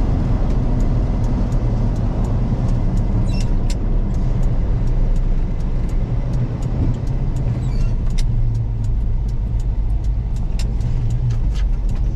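A 1974 Ford F-100 pickup with a 390 big-block V8 driving on the road, heard from inside the cab: a steady low engine drone under road and wind noise, with light ticks scattered through it.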